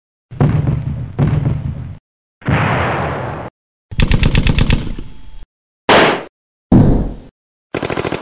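A run of short war sound effects played one after another with silent gaps between them: gun shots, and about four seconds in a rapid machine-gun burst.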